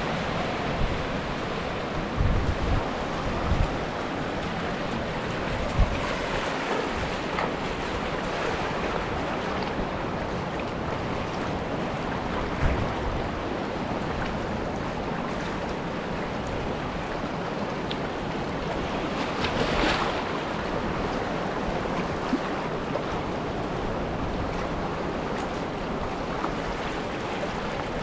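Sea surf washing over a rocky shore, with wind buffeting the microphone in low gusts during the first few seconds. A louder wash of surf comes about two-thirds of the way through.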